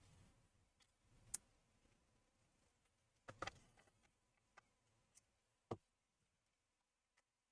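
Near silence broken by about half a dozen faint, scattered clicks and taps, which come from hands working the laptop as he tries to switch it on.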